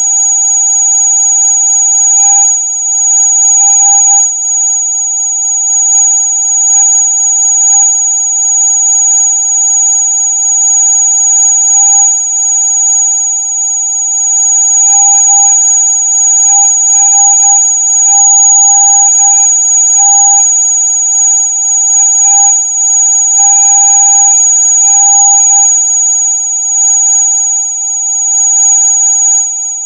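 Electronic rat-repellent sound: several steady high-pitched tones held together without a break, loud and piercing like an alarm, the strongest very high and a lower one beneath it.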